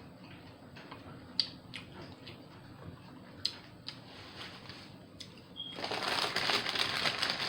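Close-miked eating of a Subway veggie sub: quiet chewing with a few sharp wet mouth clicks and crunches. About six seconds in, a much louder, dense rustling starts and keeps going.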